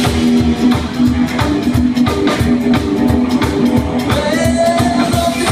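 Live rockabilly band playing a fast song with an even driving beat: drum kit, upright double bass and electric guitar, with a voice singing from about four seconds in.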